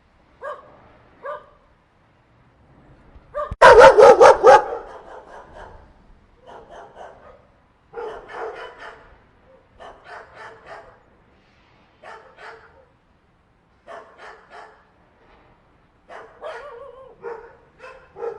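A group of dogs barking in short, irregular bouts, with one loud run of about five quick barks close together around four seconds in.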